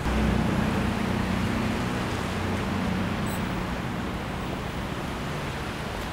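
Street traffic on a wet, slushy road: a light truck's engine hum comes in loud as it passes close at the start and slowly fades, over a steady hiss of tyres on the wet road.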